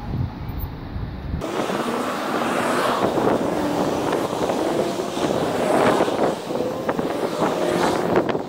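Passing road traffic with wind buffeting the microphone. About a second and a half in, the deep rumble suddenly drops away and the sound turns higher and choppier, as the recording is played fast-forward.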